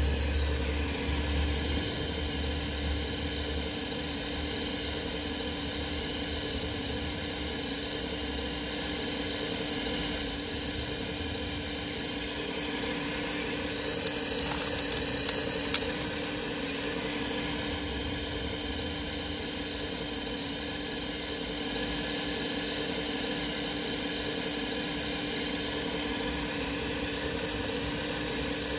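Small electric drive motors of a radio-controlled model construction machine running with a steady whine. A higher-pitched whine cuts in and out every few seconds, and a low hum fades out in the first few seconds.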